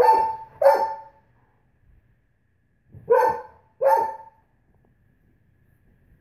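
Great Pyrenees barking: two barks in quick succession, then two more about three seconds later.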